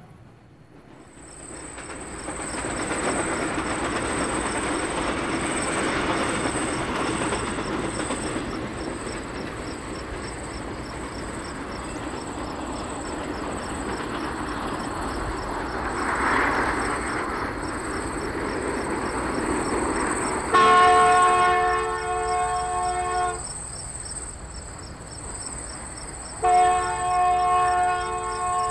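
O-gauge model trains running on the layout's track with a steady rolling rumble. About two-thirds of the way in, a model train's horn sounds a chord for about three seconds, then sounds again near the end. A thin high whine lies over it all.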